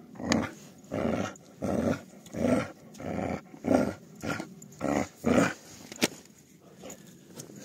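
Akbash puppy growling in a run of about nine short growls in quick succession. The growls stop about five and a half seconds in, followed by a single sharp click.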